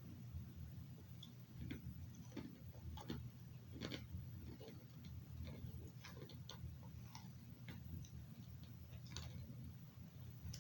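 A person chewing baked pita chips: irregular short, crisp crunches about a second apart, over a low steady hum.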